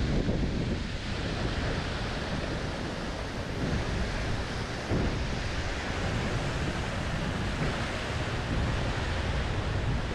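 Water from a stepped cascade fountain splashing in a steady rush, with wind buffeting the microphone.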